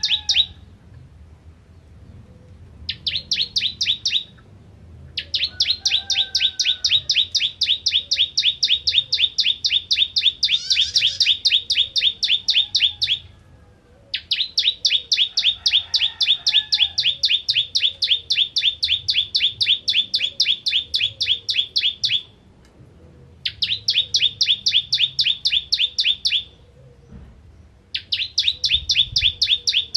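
Ciblek kristal (a prinia) singing: long runs of rapid, evenly repeated sharp notes at one high pitch, about five or six a second. The runs last from a second or so up to about eight seconds, with brief pauses between them.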